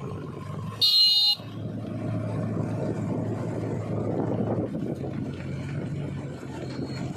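A heavy machine's diesel engine running steadily, with one short, loud horn toot about a second in.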